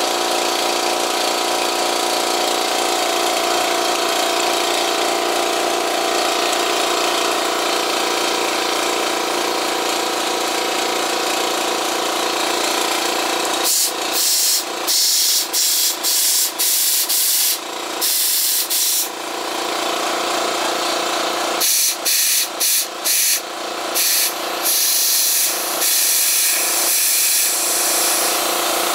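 Small electric air compressor running steadily with a hum and hiss as it inflates an electric scooter's 10-inch inner tube. From about halfway it breaks off and starts again many times in short bursts, with bright hissing of air.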